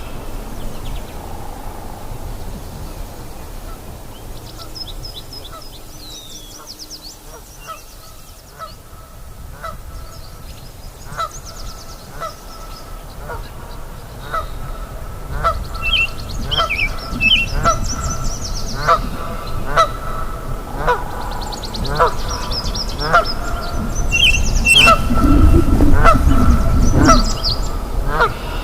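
Nyamang calling: a short honking note repeated about once a second, growing louder towards the end, with small birds chirping and twittering over it.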